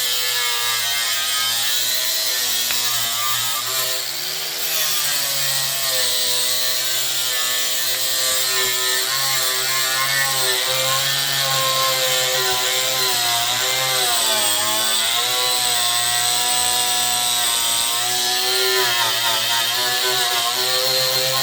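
Handheld electric angle grinder running with a paint and rust stripping disc against a car bumper, its whine wavering in pitch as the load changes, with a brief dip about four seconds in.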